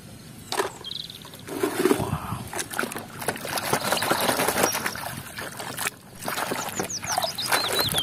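Muddy water sloshing and splashing in a plastic tub as a toy bicycle is swished around in it by hand, irregular and uneven, with a few short high chirps near the end.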